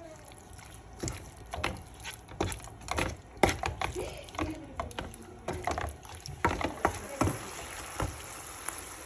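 Kitchen clatter: a run of irregular sharp clinks and knocks from utensils and bowls as marinade ingredients are handled and mixed.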